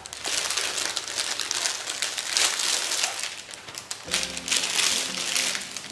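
Thin clear plastic bag crinkling and rustling as a fabric hair cap is pulled out of it, dense for about four seconds, then quieter, with a low steady tone coming in near the end.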